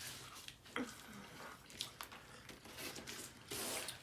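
Faint eating sounds: wet chewing and small mouth clicks, with a brief rustle about three and a half seconds in.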